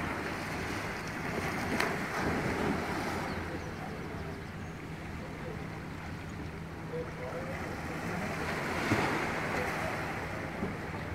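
Small waves lapping and washing onto the edge of a concrete slipway, swelling and easing, with wind on the microphone and a faint steady low hum underneath.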